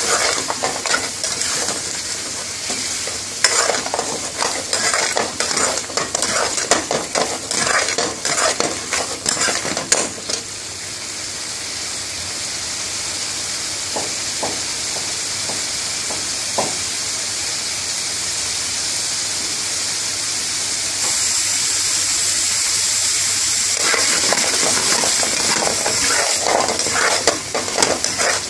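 A metal spoon stirring and scraping a thick curry around a metal frying pan over steady sizzling. The stirring stops about ten seconds in, leaving only the sizzle, and starts again near the end.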